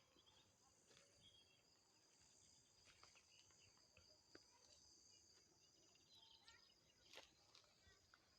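Faint, steady high-pitched insect chirring, like crickets, with a few soft clicks and short chirps over it.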